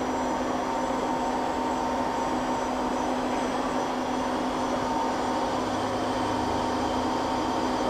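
Romi M20 CNC lathe running with its spindle and chuck turning at speed under constant-surface-speed control: a steady machine hum with a thin high tone.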